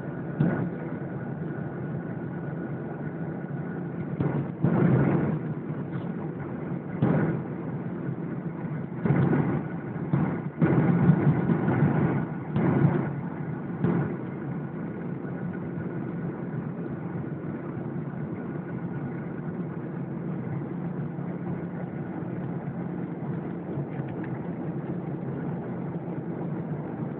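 Steady cabin drone of a jet airliner in cruise, engine and airflow noise heard from inside the cabin by the window. Several brief louder surges come in the first half, then the drone runs on evenly.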